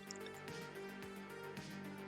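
Quiet background music with sustained tones and a fast, steady beat.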